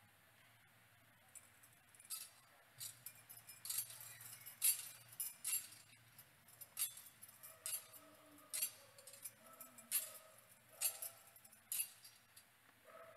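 Metal thurible clinking against its chains as it is swung to incense the Gospel book. The irregular sharp clinks start about two seconds in and come every half second or so.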